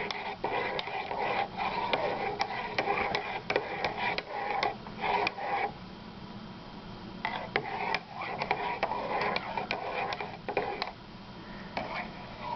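Spoon stirring Ovaltine powder into hot milk in a mug: quick scraping strokes with many sharp clinks against the sides, pausing briefly about halfway through.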